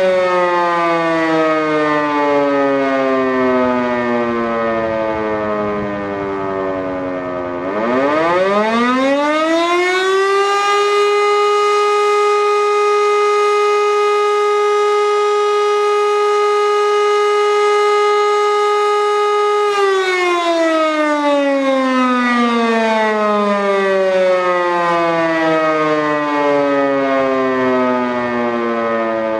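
Civil defense siren sounding a test alarm: its falling wail winds down, then about a quarter of the way in it spins back up to a steady high tone held for about ten seconds, and winds down again with a long falling pitch.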